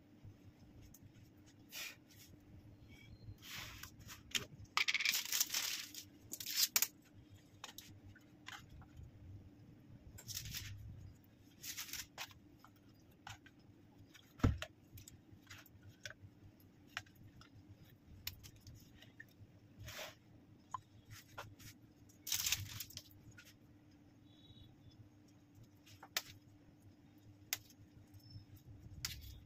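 Handling noises: parchment paper rustling and a palette knife scraping as jam is scooped from a plastic tub and spread over a sponge sheet, in short scattered bursts, the loudest a few seconds in. One sharp knock about halfway through.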